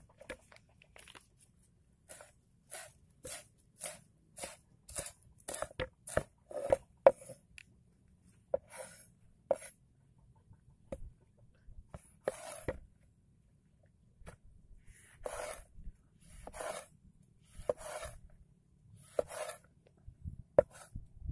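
A large knife chopping through crisp lettuce onto a wooden cutting board: crunchy cuts, each ending in a knock on the wood, about two a second at first, then slower and more spaced as it moves on to slicing a tomato.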